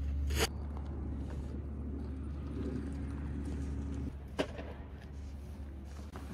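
Steady outdoor background noise with a low rumble, broken by a sharp click about half a second in and another a little after four seconds.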